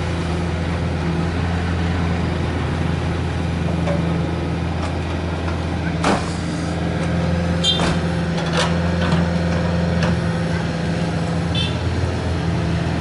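Steady diesel drone of a Komatsu PC45MR mini excavator at work, digging and swinging a full bucket of soil. A few sharp knocks come through the middle as the bucket works the soil.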